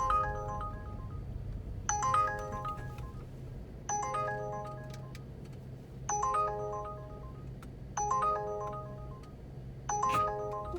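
Phone alert chime repeating about every two seconds, six times, each a quick cluster of bright notes, over a steady low hum. It is the Uber driver app's alert for an incoming order request.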